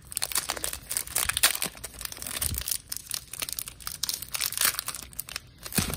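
Foil trading-card pack wrapper being torn open and crinkled by hand: a dense, continuous run of crackles and rustles.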